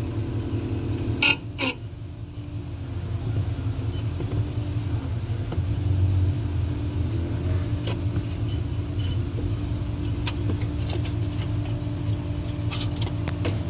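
Freezer fan motor of an LG French-door refrigerator running with a steady low growling rumble ("으르르르"), the abnormal fan noise that calls for the motor to be replaced. Two sharp clicks sound about a second and a half in.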